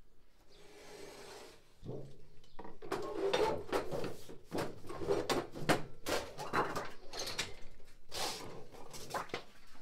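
Sheet of trim coil being cut to width on a Tapco bending brake: the sheet scrapes and rattles against the brake's aluminium rails as it is slid in and the cutter is run along it. It begins with a brief scrape, then becomes a continuous scraping clatter with many small knocks from about two seconds in.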